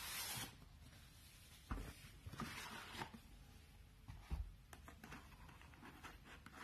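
Faint handling noise of a cardboard camera box being opened: a brief scraping hiss, soft thumps as the box pieces are set down, and light rustles and clicks as the camera in its plastic case is lifted out.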